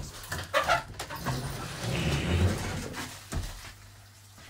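Handling noise from a handheld phone being swung around: uneven rubbing and rumbling on the microphone, a short knock a little after three seconds, then quieter room noise.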